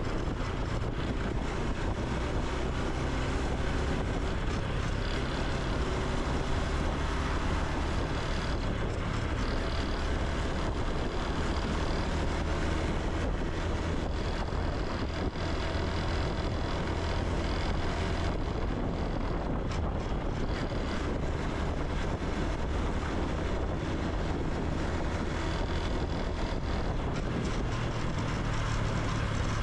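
Honda Super Cub C125's single-cylinder four-stroke engine and exhaust running steadily while the bike rides along, with wind rushing over the microphone.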